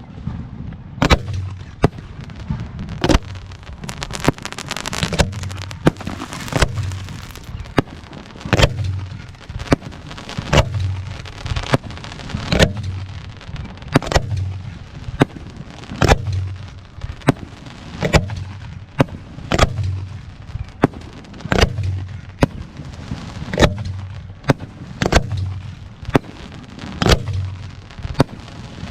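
Aerial fireworks show: shell bursts going off one after another, about one or two sharp reports a second, each with a deep boom, and stretches of crackling between them.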